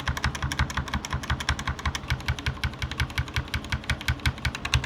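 Mechanical keyboard being typed on fast: a quick, even stream of keystrokes, about ten a second, each a sharp click with a low thud.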